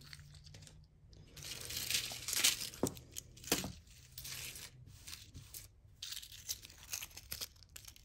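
Packaging being handled and pulled open by hand: crinkling and tearing in irregular bursts, loudest in the first half, with a couple of sharp clicks.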